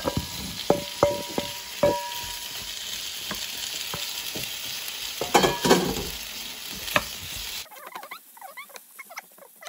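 Vegetables sizzling in an oiled frying pan as julienned carrots and onion are tipped in from a stainless steel bowl onto frying potato strips. The bowl knocks against the pan a few times early on, two of the knocks ringing briefly. A wooden spatula then stirs and scrapes through the sizzle. About two seconds before the end the sound thins and quietens into high chirping squiggles, because the footage is played at four times speed.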